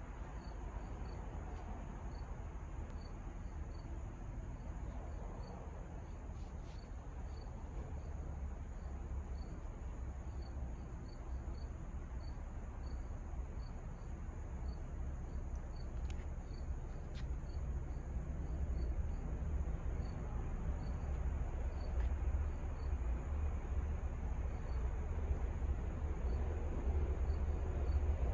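Crickets chirping steadily, about two high chirps a second, over a low rumble that slowly grows louder toward the end as an MBTA HSP46 diesel locomotive approaches from a distance.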